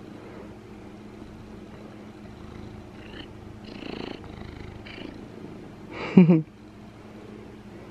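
Domestic cat purring steadily right at the microphone while being petted, with some rustling of fur against it. A brief, loud vocal sound comes about six seconds in.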